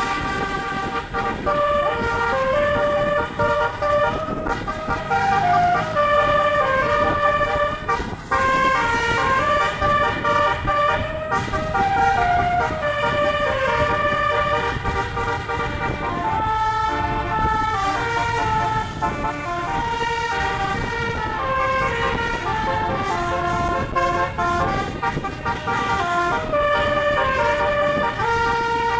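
A bus's telolet horn, a set of multi-trumpet air horns playing a long melody, note after note in quick steps with no pause.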